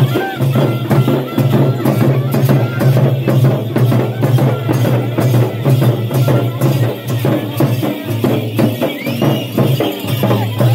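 Traditional Indian folk music: fast, dense percussion with jingling strokes over a steady low drone, and a short rising melodic line near the end.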